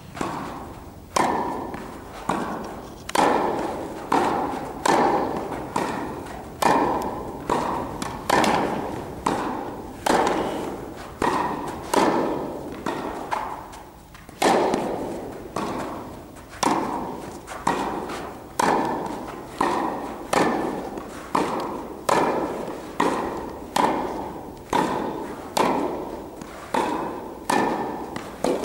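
Tennis ball struck by rackets in a continuous volley exchange, a sharp pop roughly once a second, each hit ringing out in the echoing indoor tennis hall.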